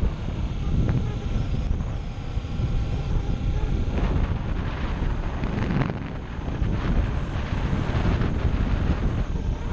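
Wind rushing and buffeting over a bike-mounted action camera's microphone on a moving Kawasaki Ninja 250SE, with the motorcycle's engine running beneath it. The wind surges and eases in gusts.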